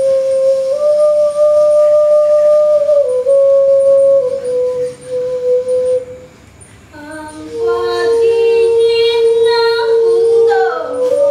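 Slow music of long held notes, the melody stepping between a few pitches. It dips away about six seconds in, then returns with several notes sounding together and a falling glide near the end.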